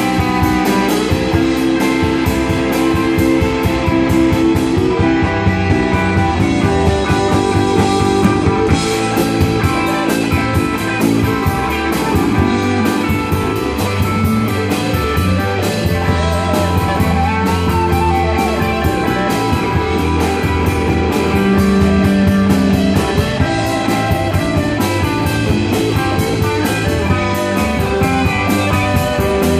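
Live rock band playing an instrumental passage: two electric guitars over bass guitar and a drum kit.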